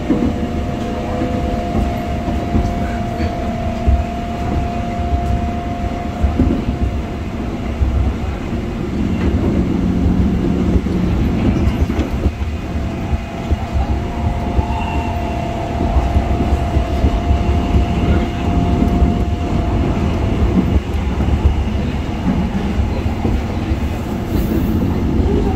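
Busan Transportation Corporation first-generation 1000-series electric multiple unit running at speed, heard from inside the car: a continuous rail and running rumble. A steady whine comes and goes twice over it.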